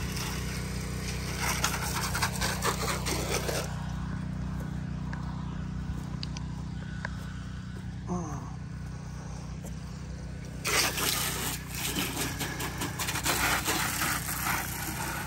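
Soft-wash spray wand hissing as it sprays water onto vinyl siding and eaves, stopping about four seconds in and starting again about eleven seconds in. A steady low motor hum runs underneath.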